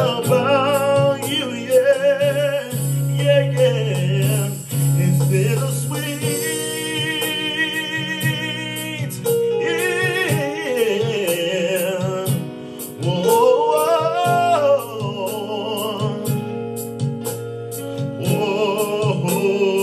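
A man singing long, wavering vocal runs without clear words into a microphone, over an R&B backing track with sustained keyboard chords and light ticking percussion.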